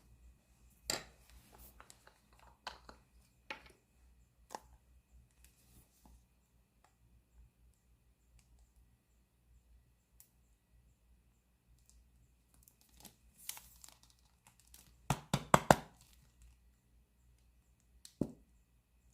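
Kitchen preparation handling sounds: scattered clicks and crinkling of packaging, then a quick run of knocks like a knife chopping on a cutting board about fifteen seconds in, and a single knock near the end.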